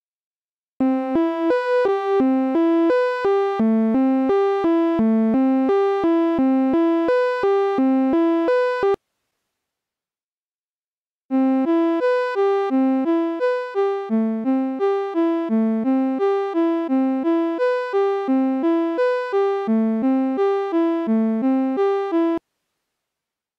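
Serum software synthesizer playing a repeating melody of short, plucky notes, about two and a half a second, on a patch built from a slightly detuned sine layered with a second oscillator. It is a sound-design preview loop: it plays for about eight seconds and cuts off abruptly. After a two-second gap it plays again for about eleven seconds while the amplitude envelope is being reshaped.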